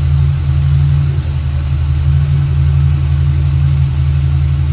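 Ford 4.6-litre V8 in a Mustang GT idling steadily, running on a freshly fitted police interceptor intake manifold while it warms up toward the thermostat opening.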